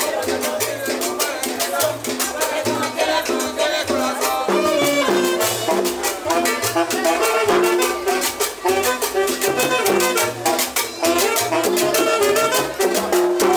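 Live cumbia band playing, with saxophone lines over hand drums, a bass line and a steady percussion beat.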